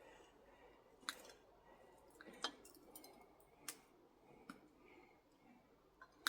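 Near quiet with a handful of faint, scattered clicks and ticks: small metal contacts from hand work on a scrap electric motor while copper winding is being pulled out of it.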